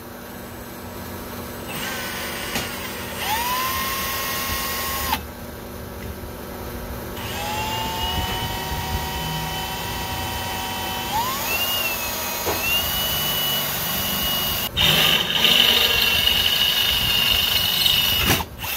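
Cordless drill boring into a steel pipe in several runs, its motor whine rising and dipping in pitch as the trigger and load change. It pauses about five seconds in, picks up again, and the last, loudest run cuts off near the end.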